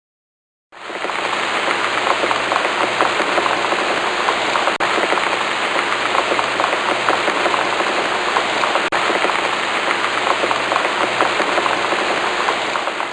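Heavy, steady rain pattering on a surface, starting abruptly about a second in, with two momentary dropouts.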